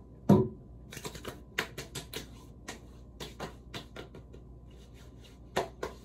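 Hands patting and slapping aftershave splash onto the face: one loud slap near the start, a quick irregular run of lighter pats, then two more slaps near the end.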